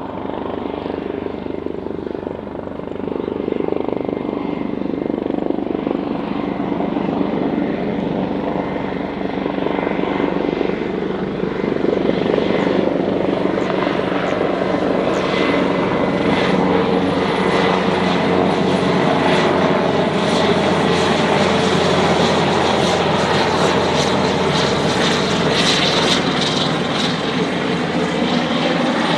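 Airbus H225M Caracal twin-turboshaft military helicopter running, with a thin turbine whine over the rotor and engine noise. It grows louder over the first dozen seconds, then holds steady and loud.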